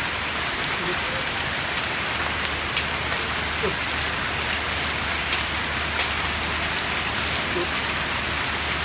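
Heavy downpour: a steady hiss of rain falling, with scattered sharper ticks of individual drops.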